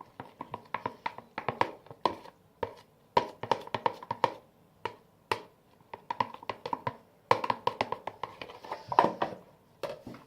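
Stirring homemade slime: a stirrer clicks and knocks rapidly against the sides of its container in quick, irregular runs with short pauses between them.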